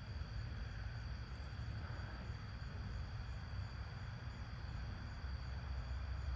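Outdoor night ambience: a steady low rumble with a steady high-pitched whine over it, unchanging throughout.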